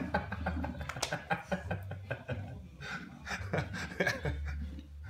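Rottweiler biting and chewing a pumpkin lid, many short wet crunches and clicks, with the dog panting and a person chuckling.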